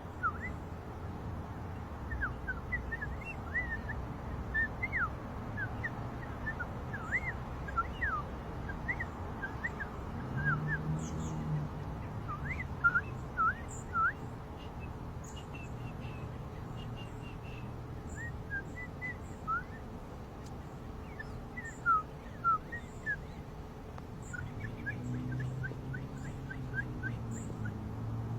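Bird-like chirping: many short, high chirps and quick up-and-down tweets over a steady background hiss, with a low hum coming in briefly about ten seconds in and again near the end.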